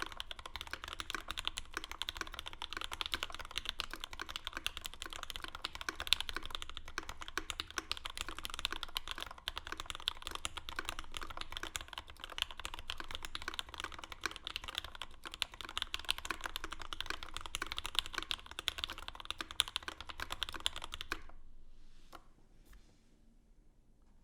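Steady, fast typing on a custom mechanical keyboard with lubed Gateron Black Ink v2 linear switches in an aluminium Bauer case with an aluminium plate and GMK keycaps. The typing stops abruptly near the end, followed by a few faint isolated key sounds.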